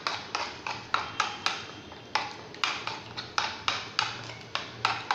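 A spoon knocking against the side of a bowl in a steady rhythm, about three to four clicks a second, as spices are stirred into yogurt.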